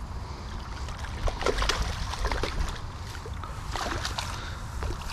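A hooked mirror carp thrashing and splashing at the water's surface as it is drawn over a landing net, in irregular bursts of slapping water.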